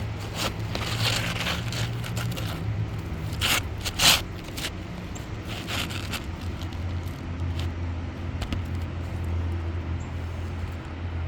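Scraping and a few knocks from work on an asphalt shingle roof as a damaged shingle is worked loose, over a steady low hum.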